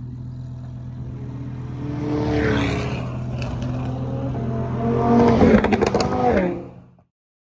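Lamborghini Huracán V10 approaching up the road and passing close by, its engine note swelling and gliding in pitch as it accelerates, with crackling exhaust pops as it goes past. The loudest moment comes about five and a half seconds in, over a steady low hum, and the sound cuts off suddenly about seven seconds in.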